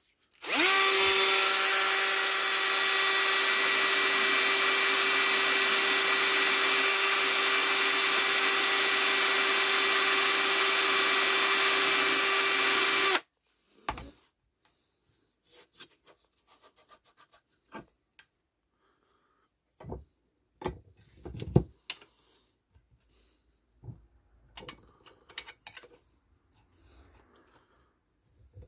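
Handheld power tool running steadily for about twelve seconds, taking rust off a bicycle seat clamp and nut, then cutting off suddenly. Scattered clicks and knocks of handling the part follow.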